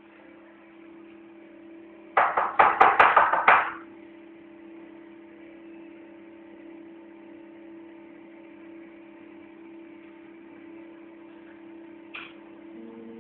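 Zirkonzahn CAD/CAM milling unit running with a steady hum. About two seconds in comes a loud, rapid burst of about eight knocks lasting over a second. A short click follows near the end, after which the hum shifts in pitch.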